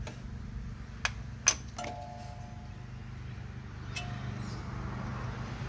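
A few sharp metal clinks about a second and a half in, one followed by a short bell-like ring, then one more clink about four seconds in: a wrench and fan bolts knocking against metal while the cooling fan is unbolted from a Mercedes W123 diesel engine.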